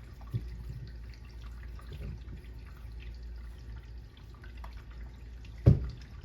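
Light clicks and taps of a padlock and small hand tools being handled, with one sharp knock a little before the end.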